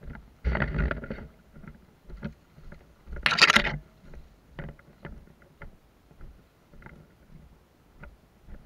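Footsteps through dry brush and weeds, with two loud swishes of vegetation brushing against the wearer's gear and the camera: one about half a second in and a louder one around three seconds in.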